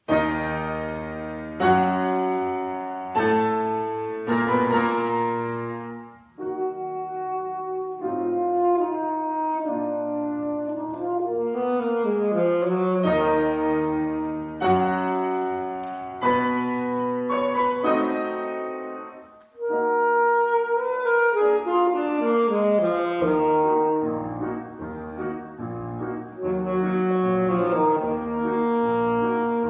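Soprano and alto saxophones playing a duet in long sustained notes over piano accompaniment, with two brief breaks between phrases.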